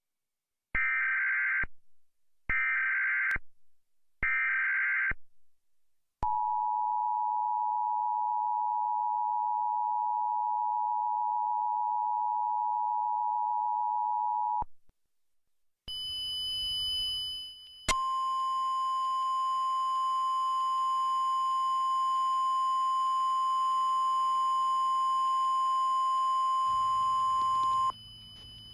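Emergency Alert System tones, as in a flash flood warning: three short bursts of warbling SAME header data, then the two-tone attention signal held for about eight seconds. After a brief gap, a single steady tone near 1 kHz sounds over hiss for about ten seconds.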